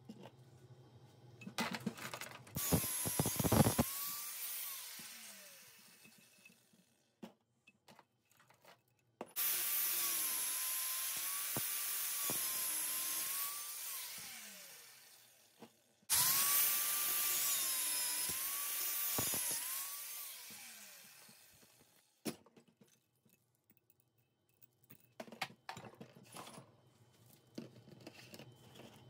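Angle grinder with a cutting disc, switched on three times to cut through steel chain links clamped in a vise. Each run starts suddenly and ends with the motor winding down in a falling whine. Near the end, loose chain links clink as they are handled.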